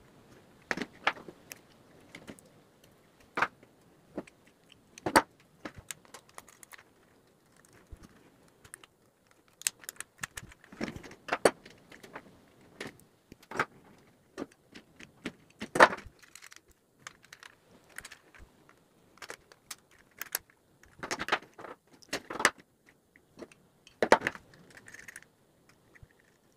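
Irregular small clicks, taps and metallic clinks from a small screwdriver working the brass terminal screws of electrical sockets, with wire being handled, as blue neutral wire is connected from socket to socket.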